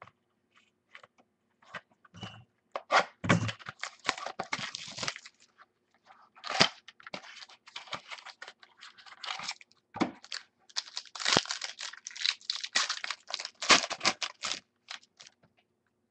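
A baseball card pack being torn open by hand: the wrapper crinkles and tears in several bursts from about three seconds in, loudest in the second half, with the cards slid out and handled.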